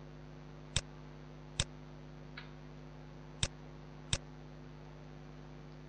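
Four short, sharp clicks from a computer mouse and keyboard being used to select and join mesh vertices, spaced unevenly, over a steady low electrical hum.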